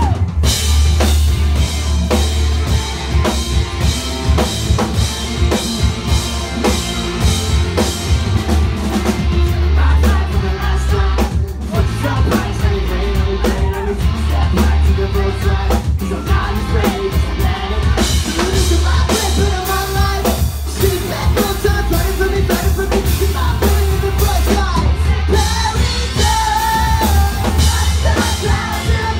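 A live rock band playing loud: drum kit, electric guitars and bass, with a vocalist singing.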